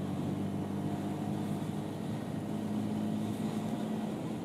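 Honda Hornet motorcycle engine running at a steady cruise on the highway, heard through the rider's helmet-mounted mic.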